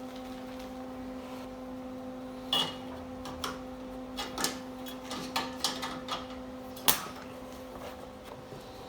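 Scattered sharp metal clinks and knocks, about a dozen short ones, over a steady electrical hum, from tools and clamps being handled on a truck frame during rust repair and welding setup.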